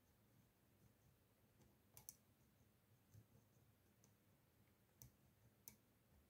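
Near silence broken by a handful of faint, short clicks, two close together about two seconds in and a couple more near the end.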